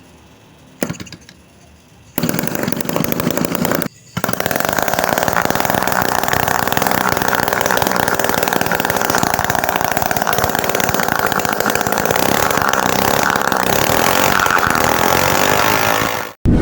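Homemade miniature two-stroke engine, built from refrigerator-compressor parts, running fast and steadily. It starts about two seconds in, drops out for a moment around four seconds, then runs until it cuts off suddenly near the end.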